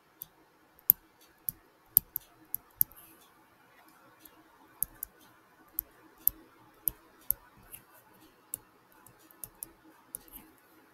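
Irregular sharp clicks and taps, about two a second, made while words are handwritten onscreen with a digital pen, over a faint steady background hum.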